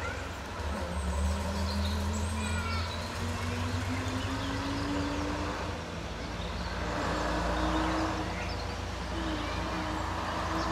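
Heritage single-deck bus engine pulling away, its drone rising slowly in pitch over the first few seconds and then holding steady, over a low rumble. Birds chirp throughout.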